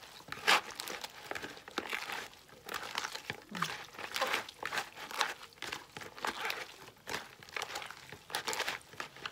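Salted, chopped cabbage squeezed and kneaded by hand in a plastic bowl: an irregular run of crushing, rustling strokes, one squeeze after another. The salt and squeezing soften and wilt the leaves for pickling.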